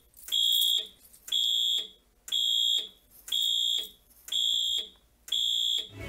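Fire alarm horn-strobes sounding in even pulses of a high tone, each about half a second long, one a second, six times. This is the Simplex 4010 panel's walk-test signal, which pulses the notification appliances to count out the point just tested.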